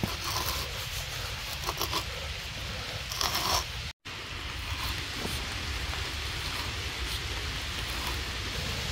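Hand wood auger with a 25 mm bit being twisted into a thick log slice, scraping and crunching in short bursts as it cuts the wood. About four seconds in, the sound drops out for a moment, then carries on as a steady hiss with fainter scraping.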